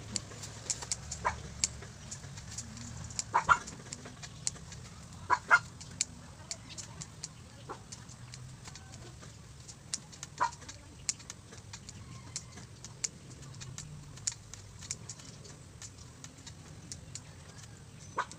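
Chickens clucking in short calls now and then, with many brief sharp ticks and chirps scattered throughout.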